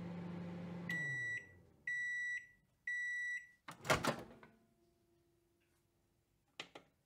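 Microwave oven running with a low hum that winds down as the timer runs out, then three beeps about a second apart signalling the cycle is done. Just before four seconds in the door clacks open, and a couple of short clicks follow near the end.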